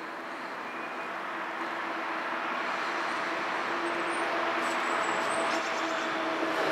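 A motor vehicle drawing nearer and passing, its engine and road noise growing steadily louder over several seconds.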